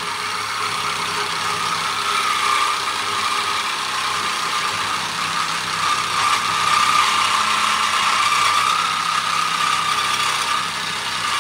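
Small cordless reciprocating saw cutting through metal angle stock: a steady rasping of the blade with a high metallic whine over it.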